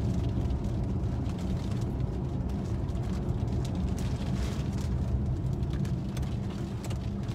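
Road and engine noise inside a moving car's cabin: a steady low rumble, with faint short taps scattered through it.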